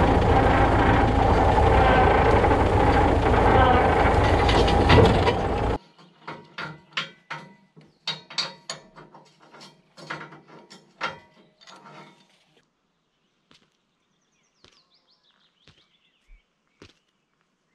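Bulldozer engine running loud, cut off abruptly about six seconds in. A string of irregular clicks and knocks follows and thins out to a few faint ticks.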